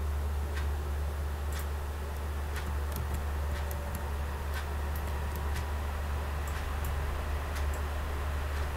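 Computer mouse clicks at irregular times, among faint ticks about once a second, over a steady low hum.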